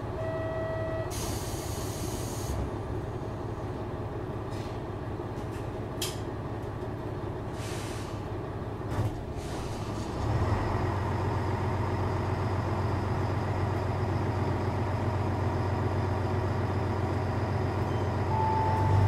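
JR Shikoku 1000 series diesel railcar idling, with a short hiss of released brake air about a second in. The engine note steps up and grows louder just past halfway. Brief beeps sound at the start and near the end.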